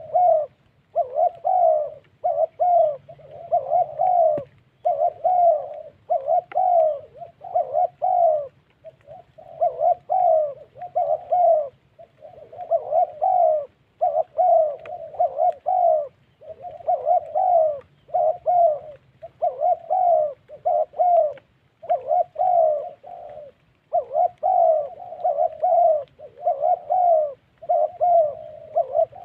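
Spotted dove cooing over and over, short coos following one another in quick clusters with only brief pauses between them.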